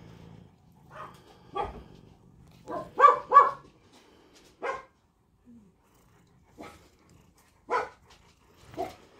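Short animal calls, about nine of them spaced irregularly, the loudest two in quick succession about three seconds in.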